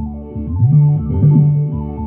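Small handheld electronic synthesizer played by hand: a repeating line of low notes, each sliding up into its pitch, about two notes a second, over held higher tones.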